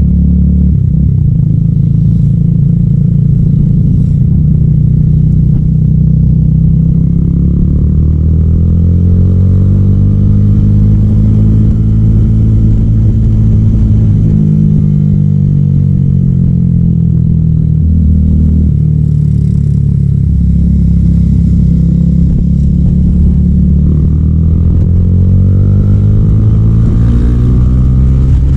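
300SR motorcycle's engine through an Akrapovic M1 exhaust, running loud while riding. The engine note climbs and falls in long sweeps as the throttle is opened and eased, with a sudden drop in pitch about eighteen seconds in, like a gear change.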